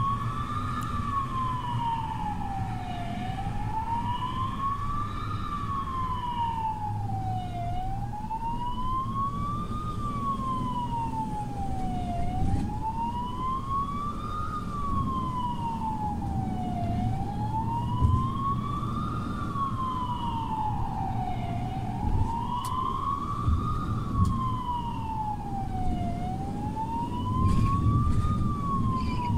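Emergency vehicle siren wailing slowly up and down, about once every four and a half seconds, heard from the escorted ambulance's ride-along, over the low rumble of road noise.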